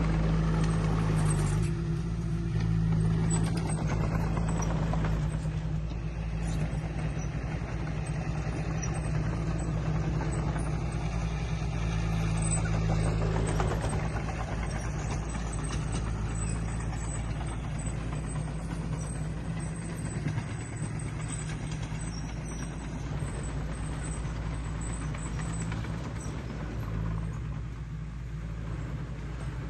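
Heavy diesel earthmoving machinery running steadily with a deep engine rumble, easing off a little in the second half.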